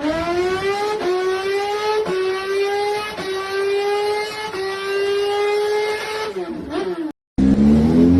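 Motorcycle engine accelerating hard through the gears: the pitch climbs, dips briefly at each of four or so gear changes about a second apart, then falls away. Near the end the sound cuts out for a moment and a fresh acceleration begins rising.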